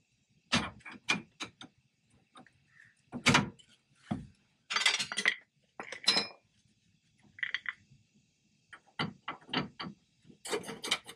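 Screwdriver tapping and prying at a brake-line retaining pin on a truck's upper brake-line bracket, working it loose: a series of irregular sharp taps and clicks, with a brief rougher rattle about five seconds in.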